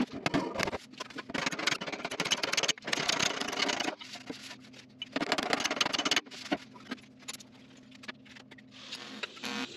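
Irregular scraping, knocking and rustling of hands and tools on a bare sheet-metal fender, in two busier spells, over a faint steady hum.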